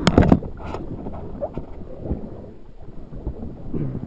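Dry grass and reeds rustling and crackling right at the microphone as a paddler grabs them to clamber up a muddy riverbank, loudest in the first half second, followed by quieter scattered rustles and knocks.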